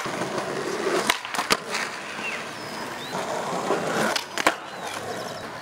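Skateboard wheels rolling on concrete, broken by sharp wooden clacks of board pops and landings: one at the start, two about a second in and a loud one about four and a half seconds in.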